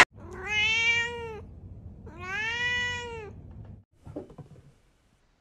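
Domestic cat meowing twice, two drawn-out meows of about a second each that rise and then fall in pitch.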